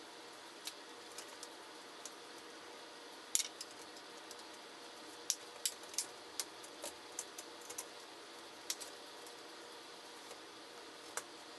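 Small sharp clicks and taps of a Dell Inspiron 11z laptop's plastic case and screen parts and a small screwdriver being handled during reassembly, irregular, with a quick run of clicks in the middle, over a steady faint hiss.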